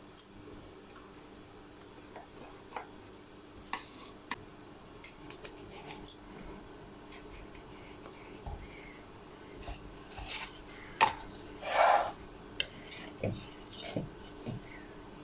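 Hand work on small wooden parts: scattered light taps and clicks with short rubbing or filing strokes, and a louder scrape about twelve seconds in, over a faint steady hum.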